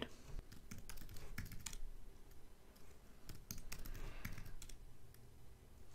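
Faint typing on a computer keyboard: quick key clicks in two bursts with a pause of about a second between them, as commands are typed.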